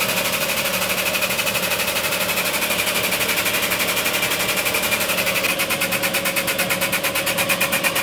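Powered pump of a shop hydraulic press running with a rapid, even pulse as the ram bends a half-inch steel weld coupon into a U for a bend test. The pulsing becomes sharper about five and a half seconds in.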